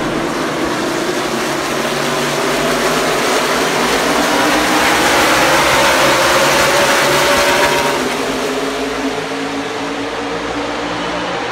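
A pack of NASCAR stock cars with V8 engines running at speed in a dense, many-engine drone. It builds to its loudest about halfway through as the field passes, then eases off.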